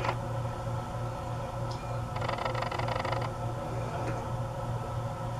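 Ballpark crowd background noise under a strong steady low hum, with a short burst of rattling, hissing noise about two seconds in.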